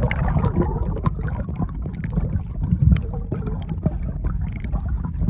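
Kayak paddle strokes splashing and water gurgling against the kayak, over a steady low rumble.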